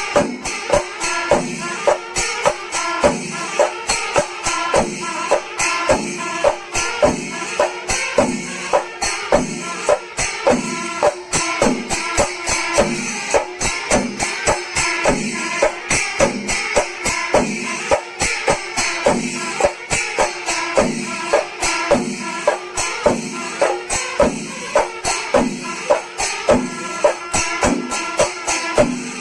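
Kerala chenda melam: a massed ensemble of chenda drums beating a steady, driving rhythm, with ilathalam cymbals clashing throughout.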